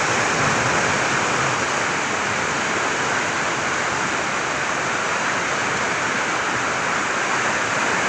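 River rapids rushing around an inflatable raft: a dense, steady white-water noise with no breaks.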